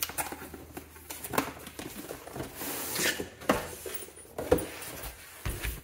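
A cardboard tool box being opened by hand: scattered taps, knocks and scrapes of flaps and packaging, with a short burst of rustling about three seconds in.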